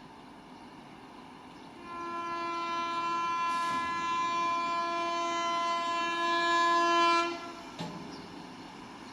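An Indian Railways train's horn sounding one long, steady blast of about five seconds, starting about two seconds in and cutting off sharply, over the low rumble of the line.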